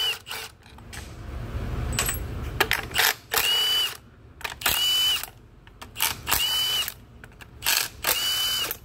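Milwaukee cordless power tool on a socket extension spinning 13 mm studs out of a Ford 6F35 transmission's valve body cover. It runs in short bursts, four in the second half about a second and a half apart, each with a high motor whine, with small metal clicks between.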